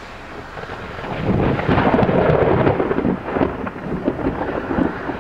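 A long roll of thunder. It swells about a second in, stays loudest for about two seconds, then rumbles on with a few surges as it eases.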